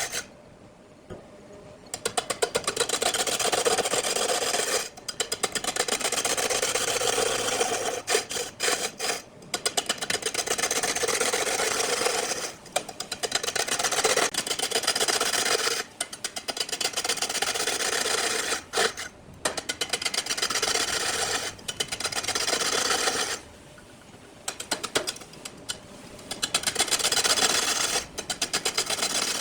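Turning tool cutting a wood block spinning on a lathe: a rapid, rasping scrape that comes in bouts of a few seconds, broken by short pauses as the tool is lifted from the wood.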